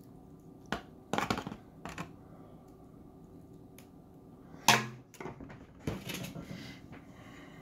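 Metal ladle clattering and scraping against a disposable aluminium foil pan as meat sauce is spread over a lasagna layer, with one loud, sharp knock a little past the middle.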